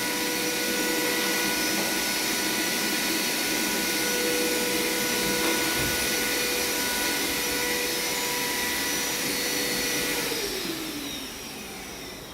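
High-speed electric motor running steadily with a whine. It is switched off about ten seconds in, and its pitch falls as it spins down.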